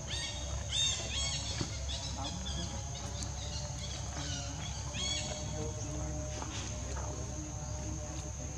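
Short, high-pitched animal chirps: a few in the first second and another about five seconds in. A steady high whine runs underneath.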